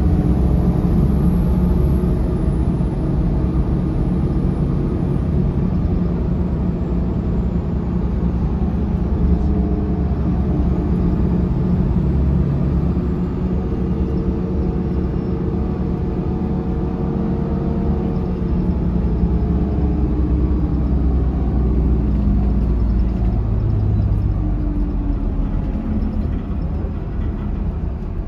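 Cabin sound of a 2005 Mercedes-Benz OH1728 coach on the move: the engine's steady rumble with its ZF automatic transmission, and a faint high whine that rises and falls near the start and again about halfway through.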